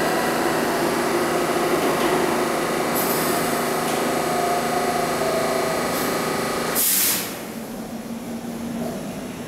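R160 subway train pulling out of the station: the motors give several steady tones over the rumble of wheels on rail. Brief hisses come about three and six seconds in, then a loud burst of hiss about seven seconds in, after which the sound falls to a quieter rumble as the train draws away.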